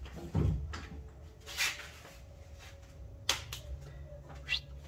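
A few scattered light clicks and knocks, one of them a brief rustle, over a low steady hum: handling noise from someone working around the battery cables.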